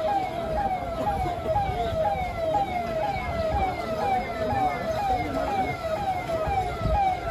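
Electronic siren sounding a fast falling wail, about three drops a second, over a low steady rumble.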